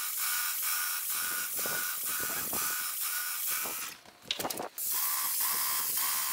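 Wagner Control Pro 250M airless paint sprayer running while spraying, its pump ticking about four times a second under the hiss of the spray. It breaks off briefly about four seconds in, then resumes a little lower in pitch.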